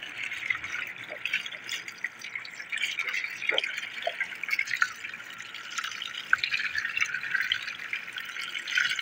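Water from a hose running steadily over a hot air-conditioner compressor, with dripping and splashing. The compressor is being cooled after it overheated and its internal overload opened.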